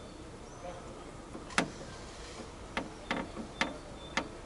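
Five sharp clicks and knocks of tools and parts being handled while a car door speaker is fitted, the first about one and a half seconds in and the loudest, the rest close together near the end.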